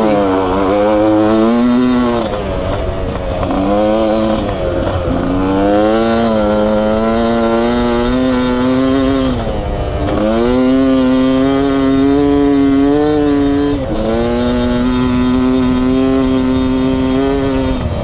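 Beta 300RR's single-cylinder two-stroke engine running hard at high revs. The revs drop briefly about four times and climb straight back up each time.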